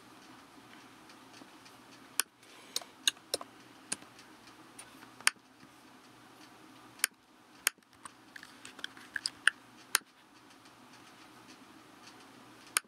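Irregular clicks and taps of a computer mouse and keyboard, some single and some in quick runs, over a faint steady room hum.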